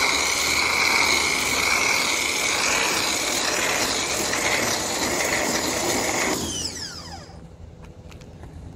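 Pressure washer running with a foam cannon spraying soap foam, a steady whine over the hiss of the spray. About six seconds in the trigger is released and the spray stops, the motor dying away with a falling whine.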